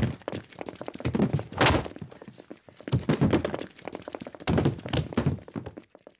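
Intro sound effects of heavy thuds and knocks: a loud hit about every second and a half, with smaller clattering knocks between, stopping shortly before the end.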